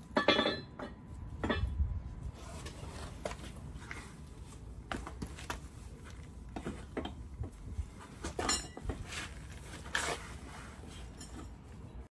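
Metal hand tools and bolts clinking and knocking as a socket wrench is worked on a Jeep's front sway bar hardware: scattered, irregular clinks, the loudest just after the start and twice near the end.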